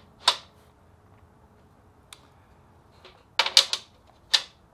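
Metal fixture parts and a flat bar being set down and placed on a perforated steel welding table top, making separate clicks and clinks: one sharp click about a quarter second in, a faint tick near two seconds, a quick run of clinks around three and a half seconds and a last one near the end.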